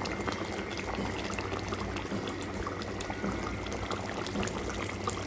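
Fish curry gravy boiling in a wide pan, a steady bubbling with many small pops.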